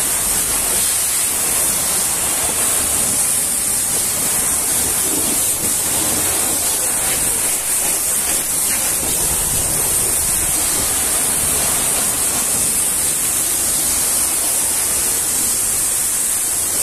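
High-pressure washer jet spraying water onto a truck's front grille: a steady, loud hiss.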